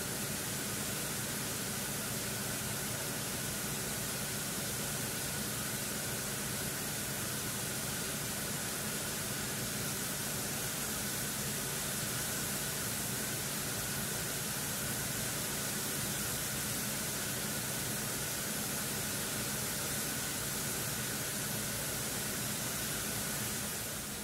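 Industrial knitting machines running together in a textile mill's knitting hall: a dense, steady mechanical whir with a constant hum in it, fading out near the end.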